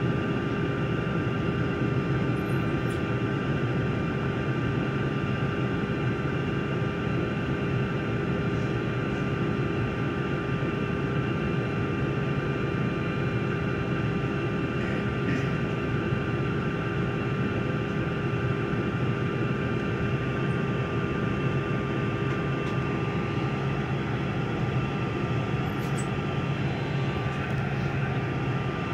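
Airliner engines idling, heard from inside the cabin: a steady drone with several steady whining tones over a low rumble.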